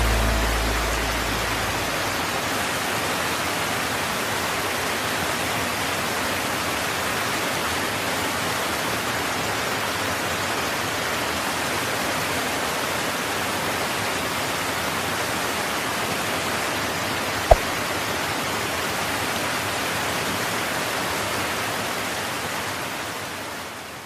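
Steady rush of a mountain stream, an even wash of water noise. A single sharp click sounds about two-thirds of the way through, and the sound fades out near the end.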